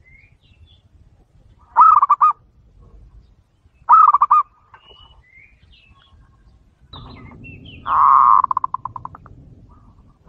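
Zebra dove (perkutut) cooing: three phrases of quick, rolling coo notes, the last one longer and trailing off in a fast stutter. Faint high chirps of other small birds fall between the phrases.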